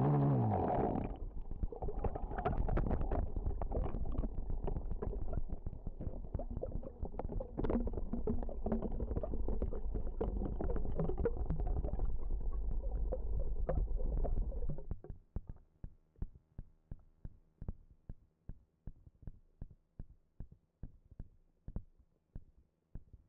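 An RC model's motor whine drops away within the first second as the onboard camera goes under water. Muffled rumbling and gurgling water noise with many small knocks follows. About 15 s in it gives way to a faint, even ticking, two to three a second.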